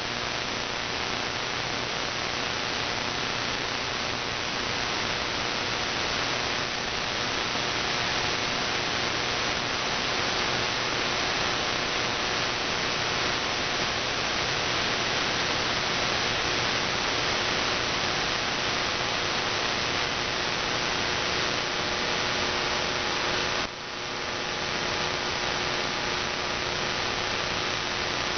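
Steady radio static hiss from an online SDR receiver tuned to an empty AM frequency, with faint steady hum tones beneath it. Near the end the hiss briefly drops away and then swells back.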